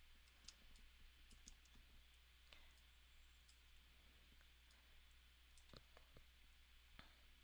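Near silence with faint, irregular clicks of a computer mouse, a dozen or so spread across a few seconds, as points of a drawing path are placed one by one; a low steady hum underneath.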